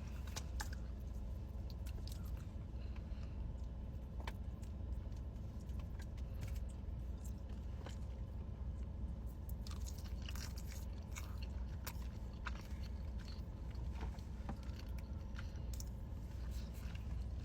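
Close-up chewing and biting of food, with small wet clicks and crunches scattered through, over a steady low hum.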